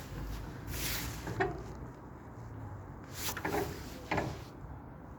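Demolition machinery at work: a low rumble with a few short scraping, squealing clanks of metal about a second in and again three and four seconds in.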